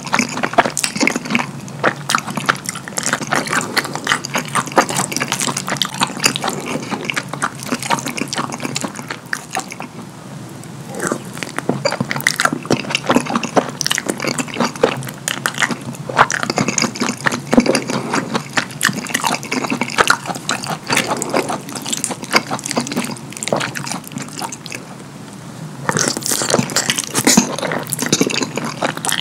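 Close-miked wet chewing and lip-smacking of mouthfuls of cheesy lasagna, a dense run of sticky, squelching clicks, easing off briefly about ten seconds in and again a few seconds before the end.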